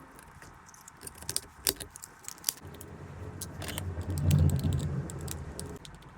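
Sharp plastic clicks and rattles of a car power-window master switch being snapped back together, with a low rumble that swells about four seconds in and then fades.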